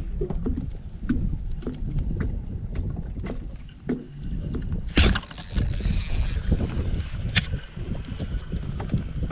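Gusty wind rumbling on the microphone aboard a small fishing boat, with scattered small knocks. A loud sharp knock comes about five seconds in, followed by a brief hiss.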